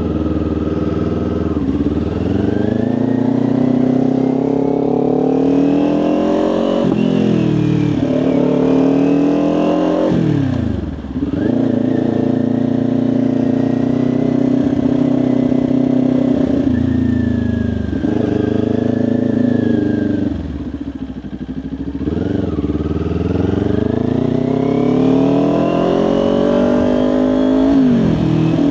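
Kawasaki Ninja 400's parallel-twin engine accelerating up through the gears: the pitch climbs and drops sharply at each upshift, holds steady at a cruise, eases off briefly, then climbs again to one more shift near the end.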